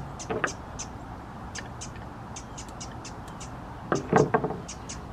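Birds chirping steadily in the background, with a brief knock about half a second in and a louder cluster of handling knocks about four seconds in.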